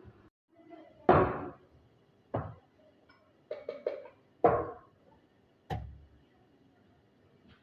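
A series of sharp knocks and clunks: one about a second in, another at two and a half seconds, a quick run of three near four seconds, then two more, each with a short ring.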